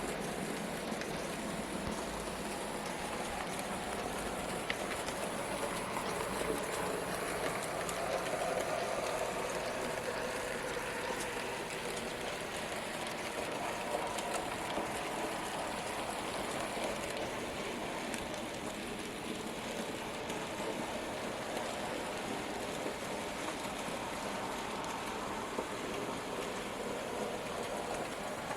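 N gauge model trains running round a layout: the steady whir of small motors and the rattle of wheels over track and rail joints, with a few faint clicks. It swells for a few seconds about a quarter of the way in, then settles back.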